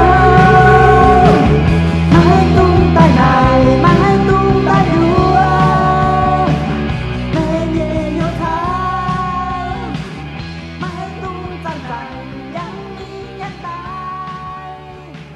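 A rock song playing, with long held melody notes, fading out steadily over the last several seconds.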